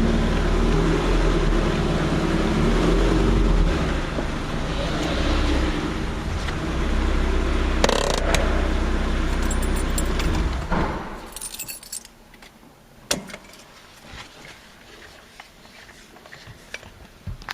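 BMW 2002's four-cylinder engine running, heard from inside the car, then switched off about eleven seconds in. Keys then jangle, with a few clicks.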